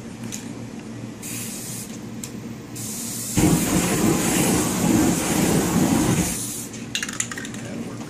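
Aerosol spray paint can hissing, then its spray lit into a torch flame: a loud rushing burn that lasts about three seconds and cuts off. A few short clicks follow near the end.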